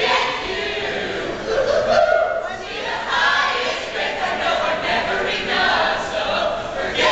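A large mixed group of singers performing together as a chorus, with crowd noise underneath.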